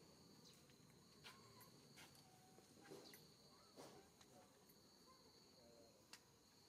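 Near silence: faint outdoor ambience with a steady high insect drone and a few faint clicks.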